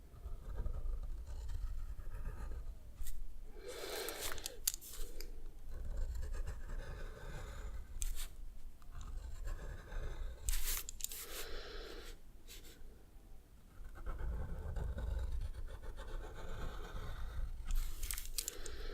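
A drawing tool scratching on paper in short strokes, with heavy breathing close to the microphone. A few louder scratchy strokes stand out, about four, eleven and eighteen seconds in.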